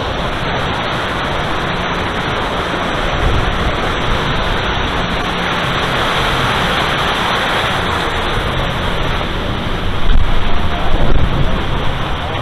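Loud steady rushing noise, with low gusts of wind buffeting the microphone about ten seconds in.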